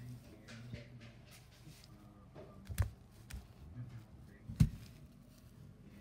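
Soft knocks and rustling as toy baby dolls are handled and set down on carpeted stair steps, with two sharper thumps, one near the middle and a louder one about three quarters through.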